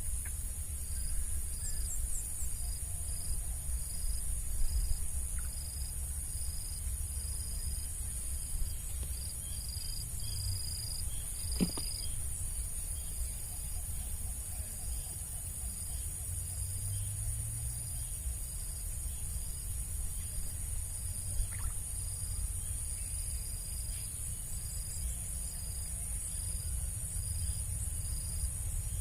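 Crickets and other insects: one cricket chirps evenly, about one and a half chirps a second, over a steady high insect drone, with a low rumble underneath. A single sharp click comes about twelve seconds in.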